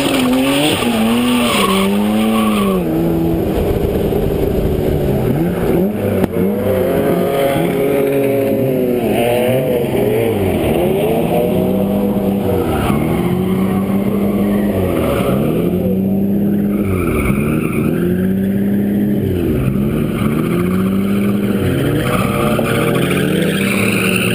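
Nissan Skyline R32's RB26 straight-six drift-car engine, heard close up from outside the car, revved up and down again and again at roughly one swing a second. Tyres squeal in the first few seconds.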